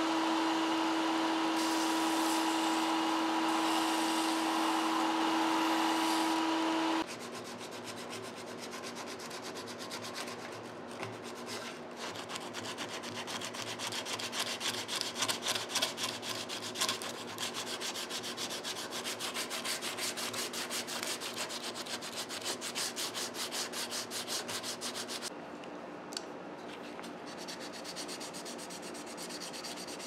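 A belt sander runs with a steady, even hum for about the first seven seconds, then cuts off abruptly. After it comes hand sanding: sandpaper rubbed quickly back and forth over a pocket knife's green handle scales, a fast, scratchy run of strokes to the end.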